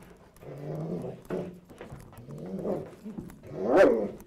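German Shepherd police dog growling and snarling as it bites and tugs on a padded bite sleeve in controlled-aggression training, a run of growls with the loudest near the end.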